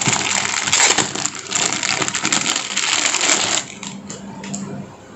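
Clear plastic packaging crinkling and crackling as it is pulled open by hand, stopping suddenly about three and a half seconds in; after that only faint rustling of the fabric being handled.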